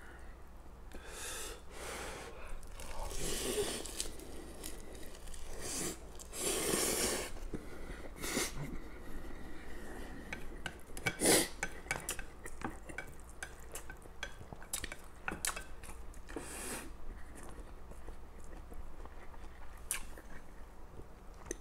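A person eating stir-fried instant noodles wrapped in roasted seaweed, close to the microphone: irregular chewing and mouth sounds, with wooden chopsticks clicking against ceramic dishes. The loudest is a single sharp click about 11 seconds in.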